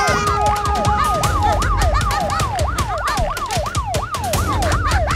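Police siren wailing in fast up-and-down sweeps, about three a second, over a run of quick clicks.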